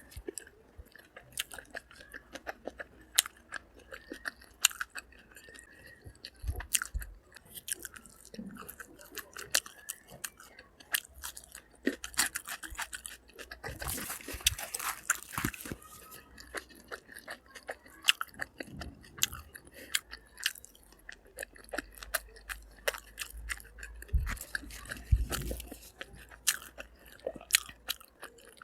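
A person eating close to the microphone: chewing, with many sharp wet mouth clicks and crunchy bites, and a louder crunchy stretch about halfway through.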